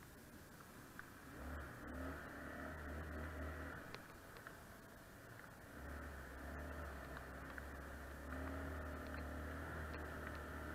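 ATV engine running on a dirt trail: a low rumble that swells under throttle about one and a half seconds in, eases near four seconds, and swells again from about six seconds in, with faint ticks and rattles.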